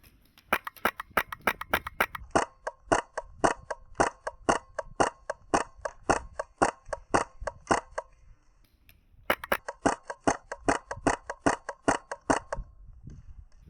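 HPA airsoft rifle, a Polarstar Kythera-converted M4, firing rapid shots at about four a second in two strings, with a pause of about a second near the middle.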